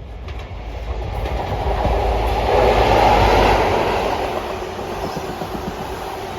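A ScotRail High Speed Train with Class 43 diesel power cars passing through the station without stopping. The rumble of its engines and wheels on the rails builds to its loudest about three seconds in, then eases slightly and carries on.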